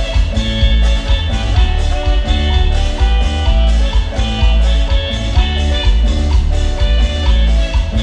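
Live band playing an instrumental passage: electric keyboard melody over electric bass and congas, with heavy bass and a steady, even beat.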